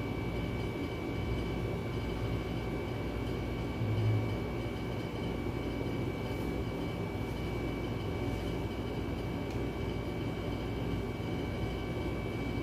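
Steady low mechanical hum with a constant high-pitched tone running through it; a brief low bump about four seconds in.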